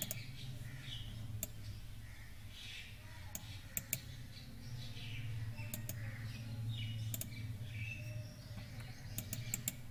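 Scattered sharp computer mouse clicks over a steady low hum, with faint bird chirps in the background.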